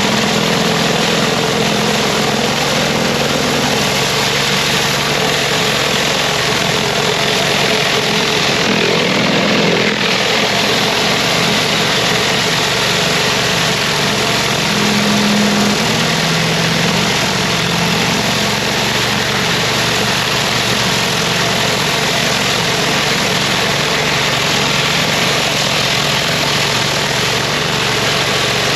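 Pressure washer running steadily, its engine droning under the constant hiss of the high-pressure water jet on paving.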